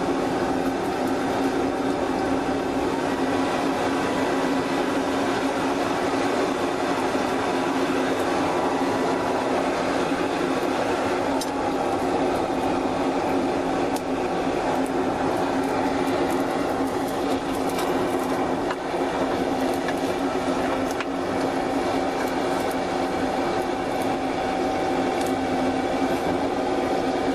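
Small electric blower fan running steadily, blowing air into a forge to heat a knife blade for hardening; a constant hum over a rushing air noise, with a few faint clicks.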